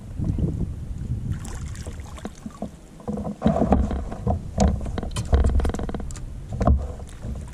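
Water splashing and knocks and handling noises around a fishing kayak, irregular and getting busier and louder about three seconds in.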